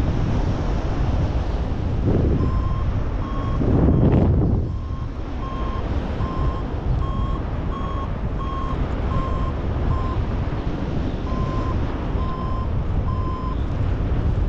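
Paragliding variometer beeping: short, evenly spaced beeps about two a second, their pitch wavering slightly, the climb tone that sounds when the glider is in rising air. Rushing airflow on the microphone runs underneath, with a louder gust about four seconds in.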